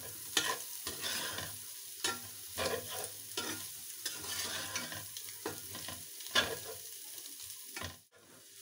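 Metal spatula scraping and turning chopped vegetables, egg and chicken in a hot metal wok, with the steady sizzle of stir-frying over full heat and irregular clinks of the spatula against the pan. The sound drops out briefly near the end.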